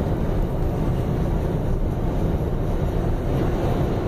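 Steady road and engine noise of a car, heard from inside the cabin while it drives along a paved road.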